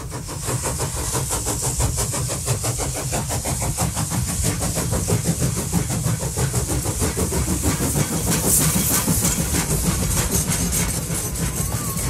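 Steam train chugging along: rapid, even chuffs over a steady hiss and a low rumble.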